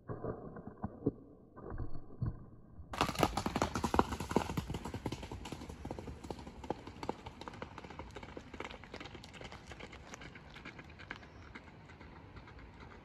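Horse galloping away on a dirt track, its hoofbeats coming fast and sharp about three seconds in, then fading steadily as it draws off into the distance.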